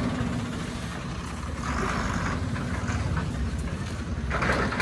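Diesel engine of a bare Ashok Leyland 1920 BS6 truck chassis running as it drives slowly along the road, a steady low rumble. Two short rushes of hissing noise come over it, about two seconds in and near the end.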